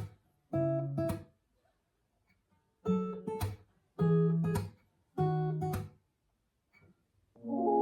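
Background music: an acoustic guitar playing short strummed chords, with silent gaps between them. Near the end, a fuller passage of held chords comes in.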